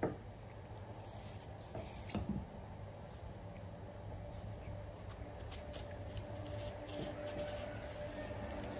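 Kitchen knife paring the skin off an apple held in the hand: soft scraping strokes, with a short knock at the start and another about two seconds in.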